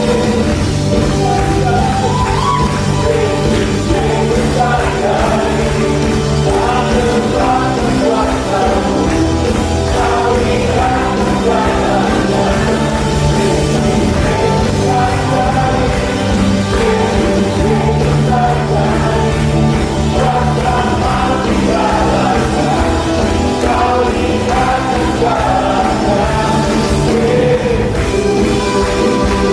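A live church praise band with drums, bass and electric guitar plays an upbeat worship song while singers carry the melody.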